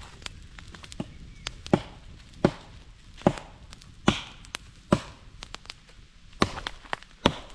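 Axe chopping into a log: about eight sharp strikes in a steady rhythm, a little under one a second, with a brief pause past the middle.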